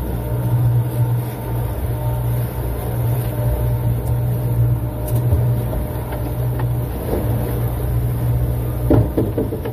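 Suzuki outboard motor running steadily on a fishing boat, a continuous low engine hum.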